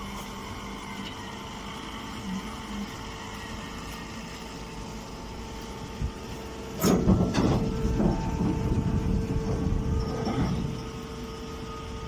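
Hydraulic straw baler running with a steady hum. About seven seconds in, a sudden loud knock starts a few seconds of louder rattling machine noise before it settles back to the hum.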